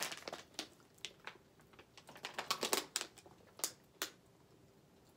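Scattered crisp clicks and plastic crackles, thickest in the first three seconds with two more about four seconds in: a plastic water bottle being handled and drunk from.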